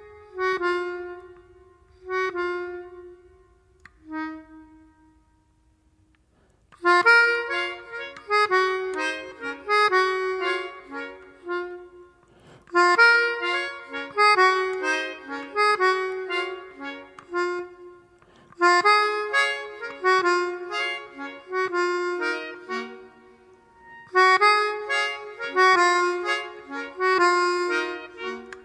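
Music played on a free-reed instrument, with the reedy tone of an accordion or harmonica. A few held notes and a pause lead into repeated phrases of chords, each about five seconds long.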